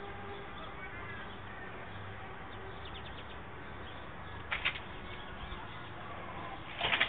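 Steady outdoor background with faint bird chirping, and two short sharp sounds, one about four and a half seconds in and one near the end.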